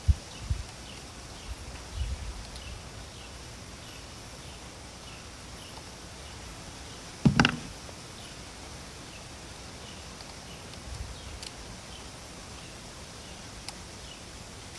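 Outdoor background with a faint chirp repeating about twice a second, broken by a few dull knocks and one sharper metallic clank about seven seconds in, from tools and parts being handled during work on an outboard's switch box.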